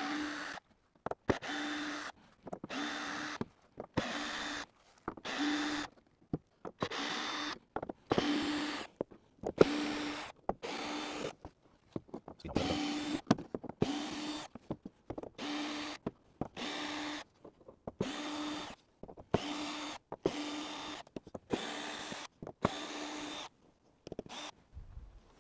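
Craftsman cordless drill/driver running in about twenty short bursts, one after another, each a steady motor whine, as it backs Phillips-head screws out of a wooden box lid.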